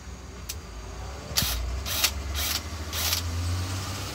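Cordless drill running as it drives a screw into a piece of tire rubber, a steady motor hum that grows louder in the second half, with four short scraping bursts about half a second apart.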